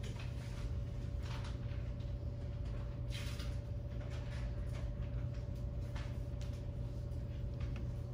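Room tone: a steady low electrical hum with a thin steady whine above it, and scattered short rustles and knocks, the loudest about three seconds in.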